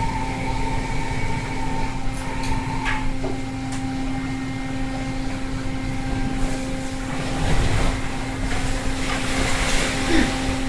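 Fishing boat's engine running with a steady hum and low rumble. A few knocks come about two to four seconds in, and a louder rush of noise swells in the second half.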